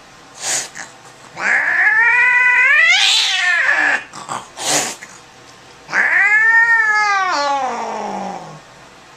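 Domestic tabby cat yowling angrily while held down on its back by the scruff: two long, drawn-out cries, the first rising then falling, the second arching and then sinking low, with short noisy bursts before and between them.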